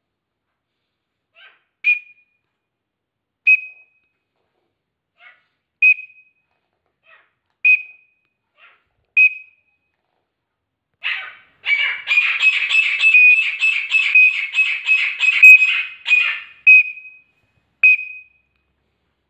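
A young male grey francolin calling in answer to a teetar-call whistle. Short single high notes come about every two seconds. Then a loud, rapid run of pulsed notes lasts about five seconds, and two more single notes follow near the end.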